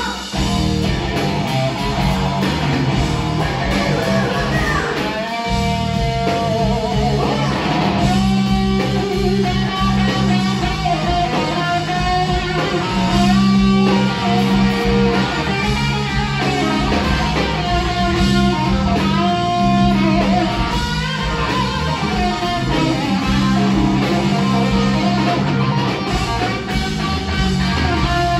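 Live rock band playing an instrumental passage: electric guitar lines over bass guitar and drums, with no vocals.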